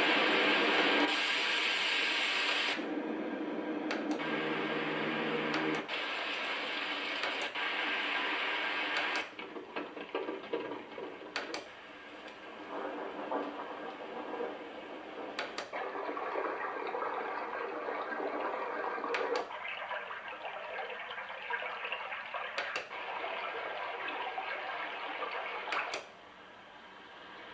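A plastic white noise machine's speaker playing one built-in sleep sound after another at high volume: steady hiss-like and water-like noises, one with a low hum in it. Each lasts a few seconds and gives way abruptly to the next, often with a short click at the change.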